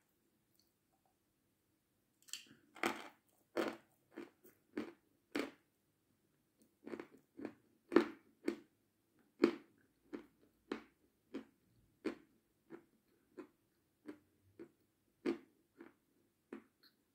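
Close-up crunching and chewing of a crisp white Severskiy confection: sharp, irregular crunches about one to two a second, starting after a short pause about two seconds in.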